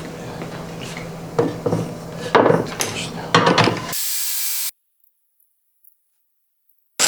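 Workshop handling sounds: about a dozen clinks and knocks of metal and wooden parts over a low hum, bunched in the middle. Then it cuts to a couple of seconds of dead silence.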